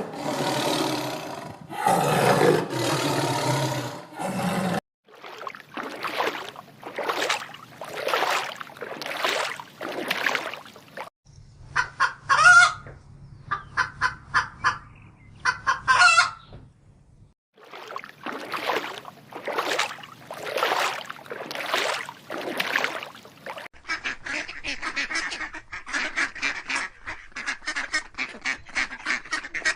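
A series of farm animals calling, in several short back-to-back clips, each a run of repeated calls. Much of it is honking calls like those of fowl.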